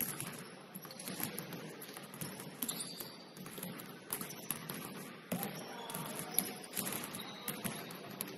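Basketball game on a hardwood gym floor: scattered footsteps and sharp knocks of the ball bouncing, with a few short sneaker squeaks.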